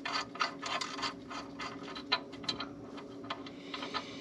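Gloved fingers handling a nut on an exhaust manifold stud: small, irregular clicks and scrapes of metal, with a faint steady hum under them.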